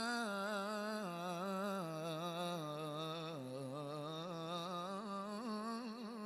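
A male voice singing one long, unbroken melismatic phrase without words in an Albanian folk song, the pitch wavering and trilling in quick ornaments and dipping lower a little past the middle.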